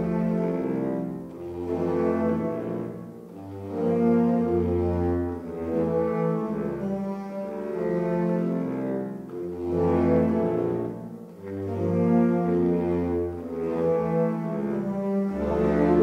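Slow background music: sustained low notes that change every second or two over a bass line.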